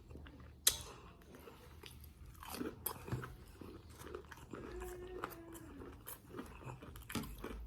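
A person chewing and biting food close to the microphone, with scattered wet mouth clicks and one sharp click about a second in.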